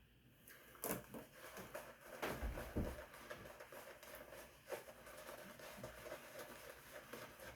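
Faint handling sounds: a few soft clicks and taps, about a second, two seconds and nearly five seconds in, over quiet room tone.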